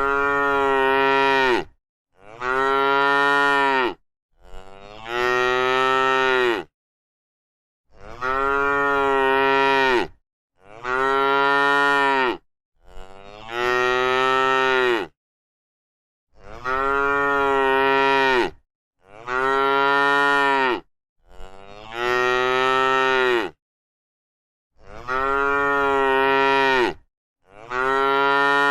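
Cow mooing over and over: about eleven long moos of roughly two seconds each, coming one after another with short gaps, each falling in pitch at the end.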